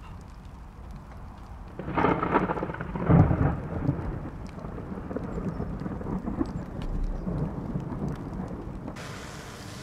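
A close thunder clap. It starts suddenly with a loud crackle about two seconds in, hits a heavy low boom a second later, then rolls off into a long fading rumble, with rain falling throughout.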